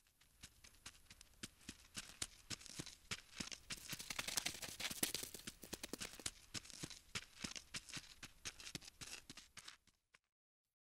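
Rapid dry clicking and scratching, like tiny legs skittering on a hard surface: a crawling-insect sound effect. It swells to its loudest in the middle, fades, and cuts off about ten seconds in.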